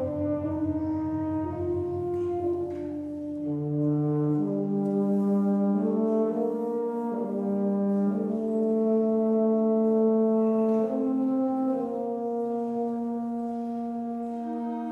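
Concert wind band playing slow, sustained held chords led by the brass, with French horns prominent; the chords change every second or two.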